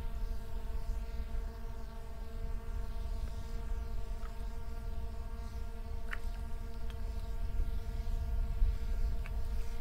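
A steady electric hum made of several fixed tones, over a low, constant rumble of wind on the microphone, with a few faint ticks.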